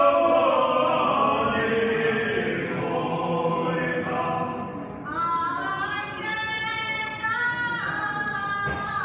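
Croatian folk ensemble singing in chorus, many voices holding long notes together; a new phrase with higher voices begins about five seconds in.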